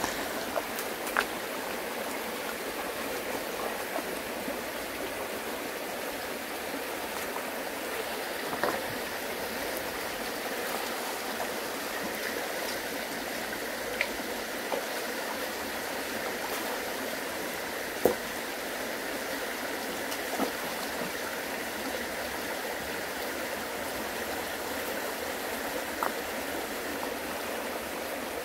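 Water flowing steadily, with a handful of short sharp clicks over it, the loudest about two-thirds of the way through.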